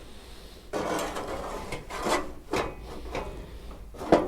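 Sheet-metal body panels scraping and rubbing against each other in several strokes as they are shifted into position. A sharp knock comes near the end.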